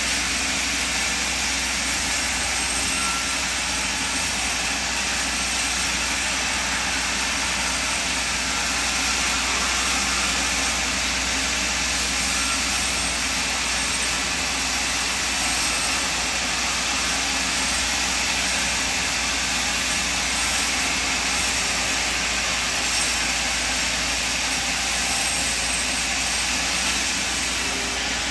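Band sawmill running steadily as it saws planks off a log: a loud, even mechanical whir with no pauses.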